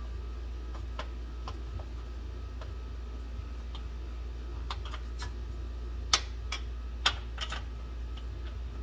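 Irregular light metallic clicks and taps of hand tools, sockets and a ratchet, working on the shifter bolts underneath a car, with two sharper clicks near the end. A steady low hum runs underneath.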